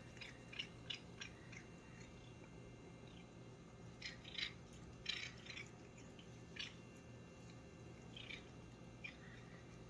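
A cat chewing a fresh blade of grass held out by hand: faint, short, irregular chewing and biting sounds, clustered in the first second and a half and again from about four to six and a half seconds in.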